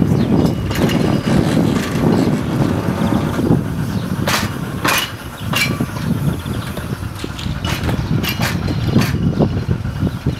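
Narrow-gauge electric tram pulling away on its rails: a low running rumble that eases as it recedes, with a scatter of sharp clicks and clanks from its wheels on the track from about four seconds in.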